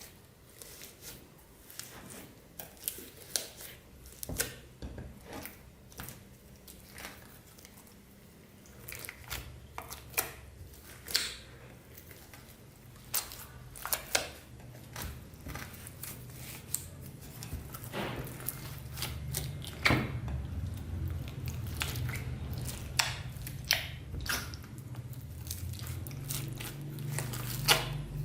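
Clear slime with plastic beads mixed in, squeezed and worked by hand: irregular sticky clicks, pops and crunches. A low steady hum comes in about halfway.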